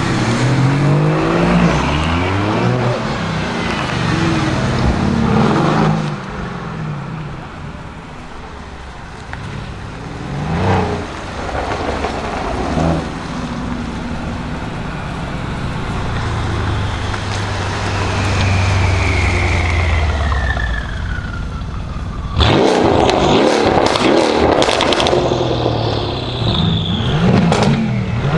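Mercedes-Benz S63 AMG twin-turbo V8 with a decat exhaust being revved up and down, with a thin whistle falling in pitch about two-thirds of the way through. From about 22 seconds in, loud rapid pops and bangs crackle from the exhaust, the sign of its pops-and-bangs ECU tune.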